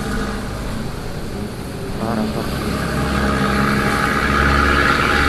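Honda CBR150R sport motorcycle's engine running under way, with road and wind noise on the camera. The sound grows steadily louder over the second half.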